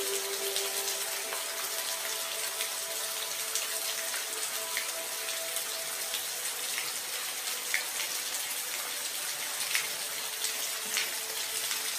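Steady rain falling, an even hiss with scattered individual drops ticking louder now and then.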